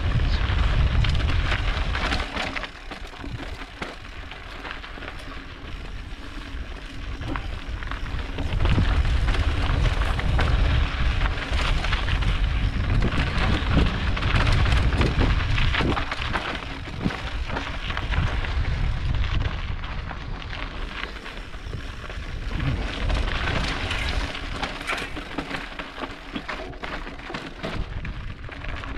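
Mountain bike riding over a rocky trail: tyres crackling and rattling on gravel and stones, with wind rumbling on the microphone. It eases off about three seconds in and again toward the end, then picks up.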